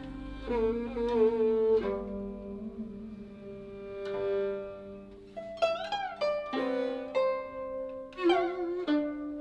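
Guzheng and yehu (coconut-shell fiddle) playing a slow Cantonese tune together: the yehu holds long bowed notes with vibrato while the guzheng plucks notes that ring and fade. There are sliding, bent pitches about halfway through and again near the end.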